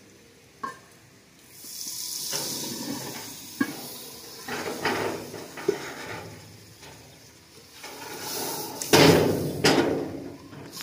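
Dal going into the pot of hot fried masala, sizzling and hissing, with knocks of a utensil against the pot. The loudest burst of sizzling and clatter comes about nine seconds in.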